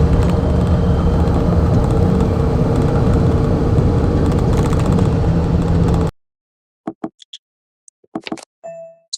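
A loud, steady engine-like running noise with a low hum through it, which cuts off abruptly about six seconds in. A few short clicks and snaps follow near the end.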